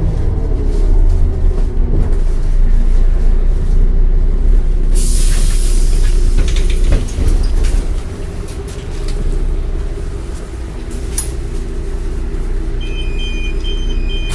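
Solaris Urbino 10 II city bus with its MAN D0836 diesel engine slowing as the bus pulls up, then running on steadily. About five seconds in there is a burst of air hiss from the brakes, with a few knocks. Near the end a high electronic beeping starts.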